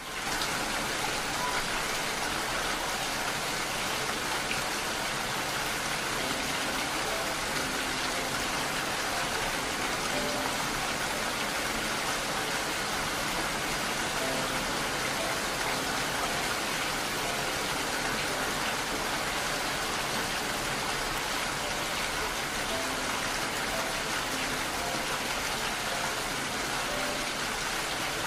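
Steady, dense rain hiss with faint, sparse soft musical notes held beneath it.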